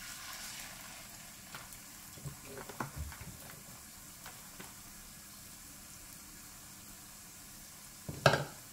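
Salmon ball lowered into shallow hot olive oil in a stainless pan, with a soft hiss of sizzling as it goes in, then quiet steady frying. A few light clicks in the middle, and a sharp knock near the end, the loudest sound.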